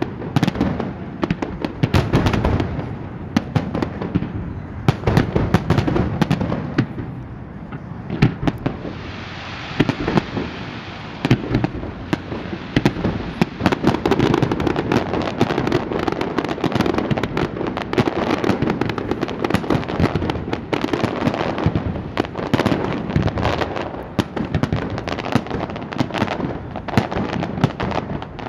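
Fireworks going off in a dense, continuous barrage of bangs and pops. From about nine seconds in the bursts come thicker and run together.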